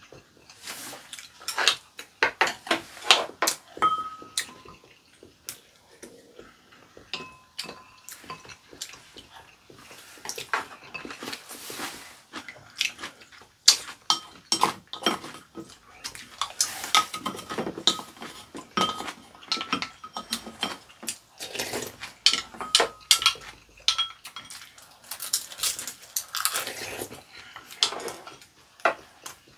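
Chopsticks and spoons clicking and clinking against ceramic rice and soup bowls and plates, some clinks briefly ringing, mixed with close-up chewing and slurping of food.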